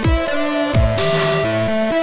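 Electronic background music: held synth notes over deep kick drums that drop in pitch, with a burst of hiss about a second in.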